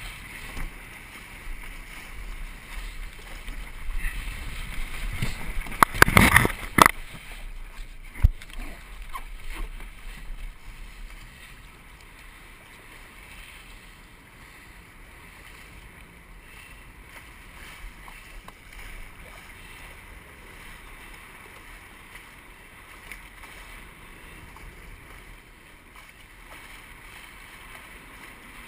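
Wind buffeting the microphone and water rushing past the hull of a Musto Skiff dinghy under sail. A cluster of loud knocks and splashes comes about six seconds in, with one more about two seconds later. After that the noise settles to a quieter, steady rush.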